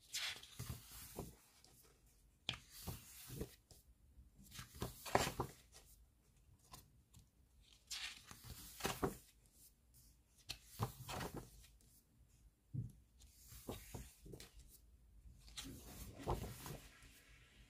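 Large photobook pages being turned by hand: a short paper rustle and flap every two to three seconds, about seven times.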